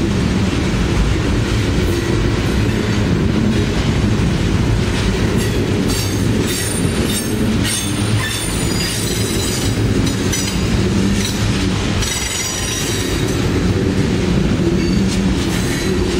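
Freight train tank cars rolling past at close range: a steady heavy rumble of steel wheels on rail. High-pitched wheel flange squeal comes and goes through the middle as the wheels take the curve.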